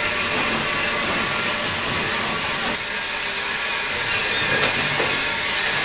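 BR Standard Class 2MT 2-6-0 steam locomotive 78022, fitted with a Giesl ejector, working on the move as heard from its footplate: a steady hiss of steam with running noise.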